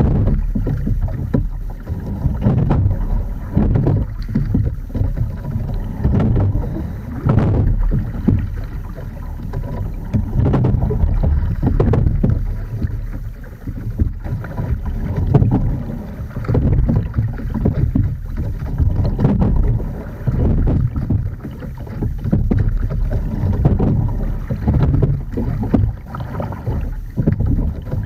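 Edon TS515 single scull being rowed: water rushing along the hull and oars, with low wind rumble on the boat-mounted microphone. The sound surges and eases about every two seconds in time with the strokes.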